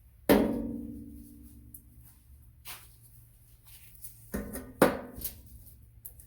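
Metal clanks during engine teardown: a sharp clank a moment in that rings and fades over about two seconds, a lighter knock, then two ringing clanks close together near the end.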